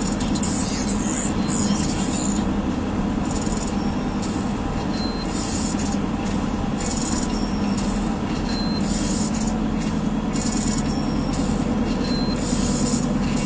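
Steady car cabin noise from the engine and tyres while driving on a partly snow-covered road, with car radio music faintly underneath.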